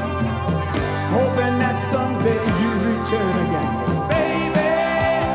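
Rock music from a full band, with drums, bass and keyboards, and a lead line over them that bends and slides in pitch; no lyrics are sung.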